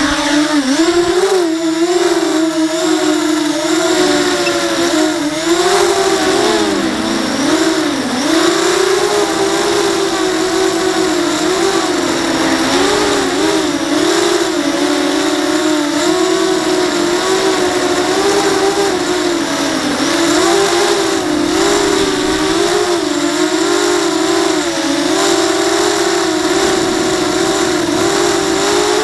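Four DYS BE1806-2300KV brushless motors spinning 5-inch KingKong 5040 bullnose props on a ZMR250 racing quadcopter, whining loudly in flight. The pitch rises and falls constantly with the throttle.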